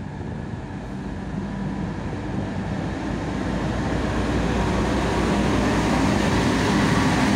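M62 diesel locomotive's two-stroke V12 engine running with a steady low drone as it hauls a train of tank wagons past, growing louder as the locomotive draws level.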